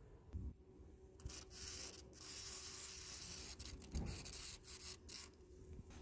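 Aerosol lubricant sprayed into a car door latch mechanism: a high hiss that starts about a second in and lasts around four seconds, broken by a few short pauses between spray bursts.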